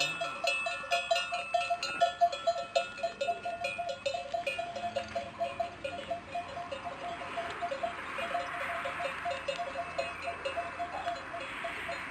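Bells on a yoked pair of cattle clanking as the animals walk, many irregular strikes a second. A rushing noise joins in over the second half.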